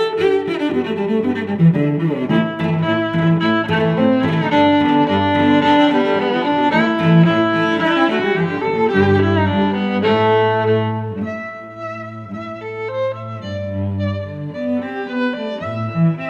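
Orchestral music with bowed strings, cello and violin, playing a sustained melody; it thins out and drops in level about eleven seconds in, then builds again.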